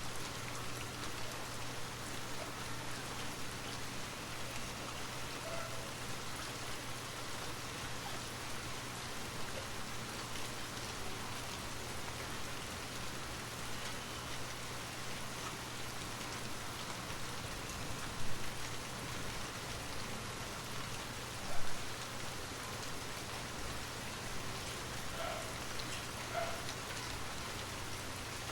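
Steady rain falling, an even hiss of drops with a low steady hum beneath it. Two brief, louder sudden sounds stand out a little past halfway through.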